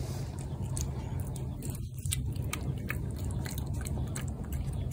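A cat chewing and biting wet cat food chunks in gravy from a plate, with quick, irregular wet clicks over a steady low rumble. The sound briefly cuts out about two seconds in.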